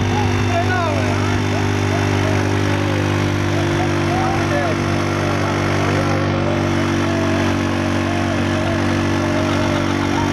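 Honda 125 motorcycle's single-cylinder four-stroke engine running at a steady speed on its stand, its rear wheel belt-driving a well water pump.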